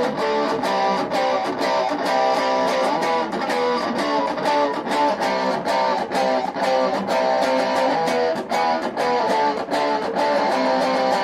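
Electric guitar played through a locally made Fender-style guitar amp with its distortion on and the tone switch set to treble: a distorted rhythm riff of quickly picked notes and chords.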